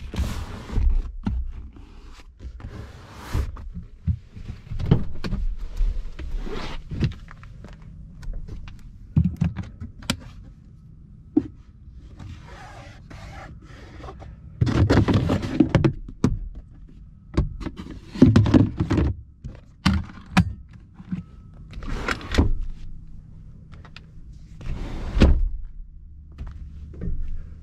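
Rear seat and interior trim of a Ram 1500 crew cab being handled: a string of irregular plastic clicks, latch snaps and thunks, with several longer rustles as the rear seat cushion is folded up.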